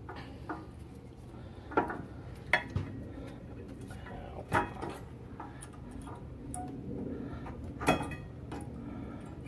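Steel-backed brake pads clinking against the caliper bracket and its new hardware clips as they are fitted in: about five sharp metallic clinks spread out over several seconds, each with a brief ring.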